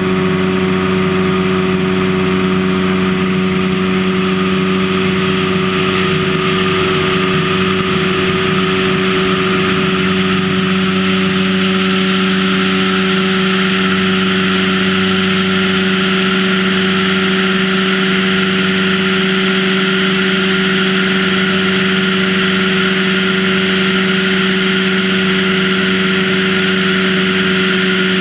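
Floatplane's piston engine and propeller running steadily at high power, one even drone that holds its pitch, during the takeoff run from water. A rushing hiss of air and water grows louder after about six seconds as the plane gains speed.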